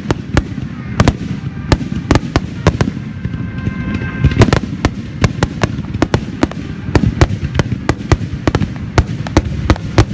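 Fireworks display: a dense barrage of sharp bangs, several a second, over a continuous low rumble.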